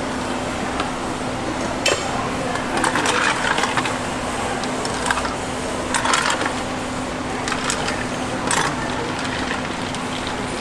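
A long metal spoon clinking and stirring in a plastic cup, with ice cubes rattling in from an insulated cooler jug, in short clattering bursts over a steady hum.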